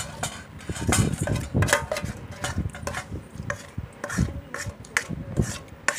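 Plastic spoon scraping and knocking against an aluminium pot as shrimp salad is scooped out into a bowl: a string of irregular scrapes and short knocks.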